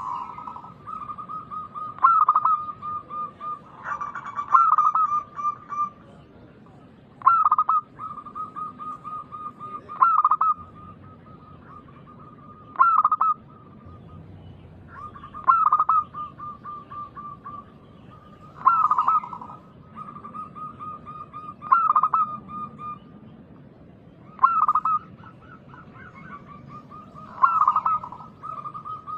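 Zebra dove (perkutut) cooing its song, repeating the same phrase about every three seconds: a loud opening note followed by a quick run of softer, rapid coos.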